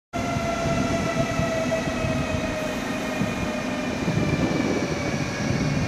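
SNCF TGV Duplex power car running while the train stands at the platform: a steady whine made of several tones over a low rumble, drifting slightly lower in pitch.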